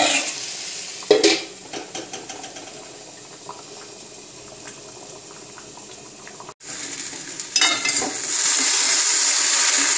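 A sharp metal clatter about a second in, then a pot of curry simmering quietly. Near the end a metal spatula scrapes and tosses sliced okra frying in a kadai, over a steady sizzle.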